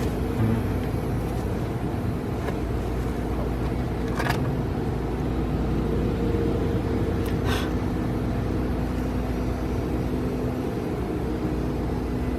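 Steady low mechanical hum and rumble, with two brief light clicks about four and seven and a half seconds in.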